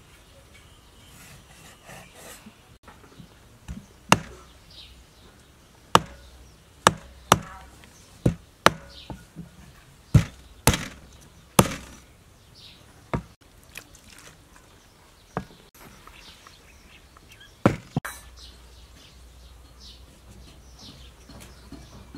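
Cleaver chopping raw chicken pieces on a thick round wooden chopping board: about a dozen sharp, irregularly spaced knocks, most of them from about four seconds in to near the end.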